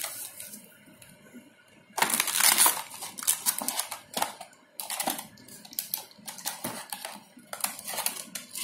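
Plastic packaging and cardboard rustling and crinkling as a parcel is unwrapped by hand, with a loud burst of crinkling about two seconds in and shorter irregular crackles after.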